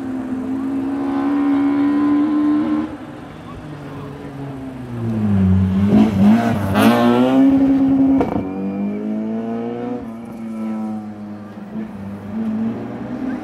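Rally car engine held at high revs, then dropping in pitch as it slows for a junction about five seconds in, then revving hard as it accelerates away, with a sharp bang about eight seconds in. The engine note then fades as the car goes off.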